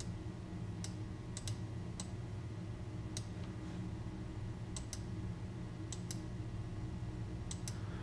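Scattered light clicks of a computer mouse, about a dozen, several in quick pairs, over a faint steady low hum.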